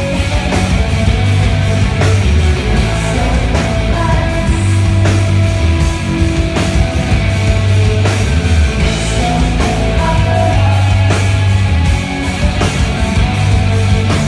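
Rock band playing live: distorted electric guitars, bass guitar and drums playing together, loud and steady, with heavy bass, recorded from the crowd.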